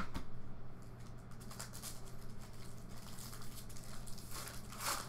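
Foil wrapper of a football trading-card pack crinkling and rustling as hands tear it open and handle the cards, with louder crinkles at the start and near the end.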